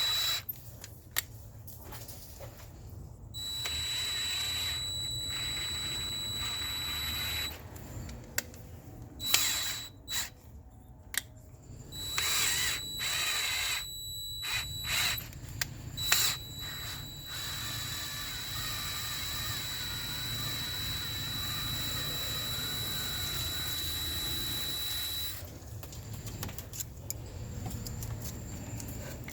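Power drill running in several runs of a few seconds with a steady high whine, the longest about nine seconds, between clicks and knocks, as it works in a stripped intake manifold bolt hole to prepare it for a Helicoil thread insert.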